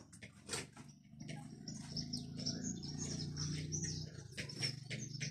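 Birds chirping repeatedly in short high calls, over a low steady hum that comes in about a second in.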